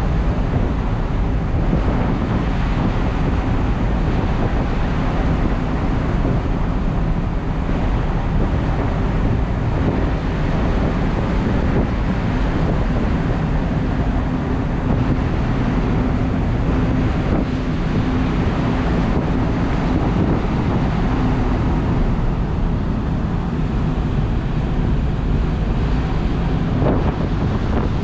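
Wind buffeting the microphone over the steady low drone of a ship's engine and exhaust, with a few even hum tones and no change in level.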